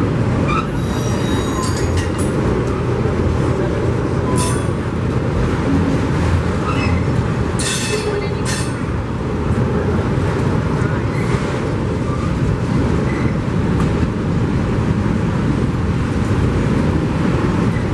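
Train rolling past on the rails: a steady rumble of wheels on track, broken by a few brief high wheel squeals and clanks, the strongest about eight seconds in.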